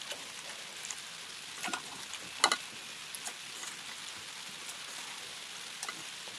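Raw beef chunks being handled by hand in a bowl and dropped into an aluminium pressure cooker, a few short knocks and wet handling sounds, the loudest about two and a half seconds in, over a steady faint hiss.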